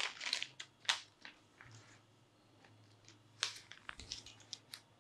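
Clear plastic packaging bag crinkling and rustling as a small FPV radio receiver is handled and pulled out of it, in short irregular crackles, with a busier burst about three and a half seconds in.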